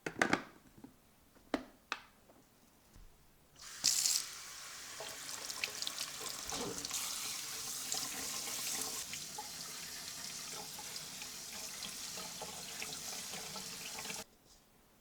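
Water tap turned on and running steadily into a sink for about ten seconds, then shut off abruptly. A few sharp clicks come before it.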